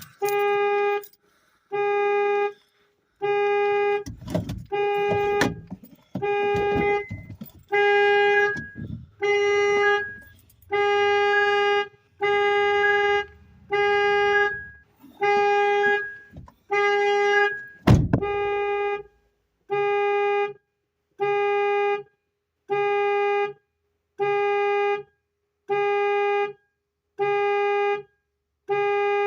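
Honda Fit's security alarm honking the car horn in repeated blasts, about one a second, each a steady single pitch. A loud thump about 18 seconds in.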